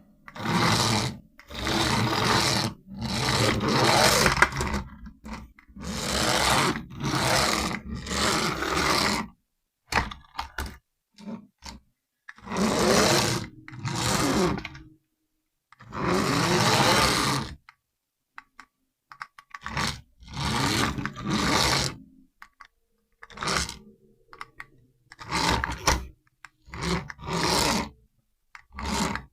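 Radio-control toy car's small electric motor and gears whirring in repeated bursts of one to two seconds, stopping and starting again with short pauses between, the pitch rising and falling within some bursts.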